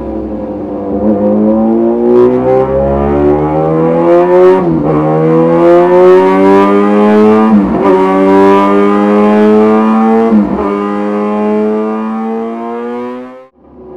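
Yamaha XJ6N motorcycle's 600 cc inline-four accelerating hard through the gears. Its pitch climbs steadily and dips briefly at each of four upshifts, then it cuts off abruptly near the end as the throttle closes.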